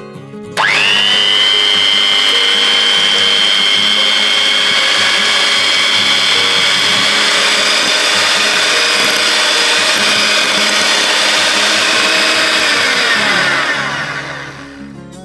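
Electric hand mixer switched on about half a second in. Its motor whines at a steady high pitch while the twin beaters whip cream in a glass bowl. Near the end it is switched off and winds down with falling pitch.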